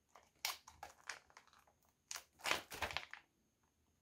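Plastic soft-bait package crinkling and rustling as it is handled and turned over in the hands. The sound comes in short, uneven spells and is loudest from about two to three seconds in.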